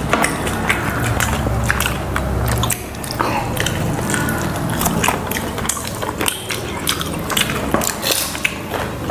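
Close-miked eating: biting and chewing fried chicken lollipop and puchka, with many short wet mouth clicks and crunches. A low rumble runs under the first three seconds.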